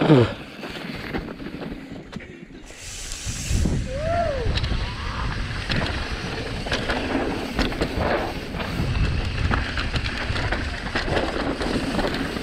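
Mountain bike riding down a rough dirt trail, heard from a rider-mounted camera: wind on the microphone, tyres on dirt and the bike clattering over bumps, getting louder about three seconds in. A loud, short falling pitched sound comes at the very start, and a brief rising-then-falling one about four seconds in.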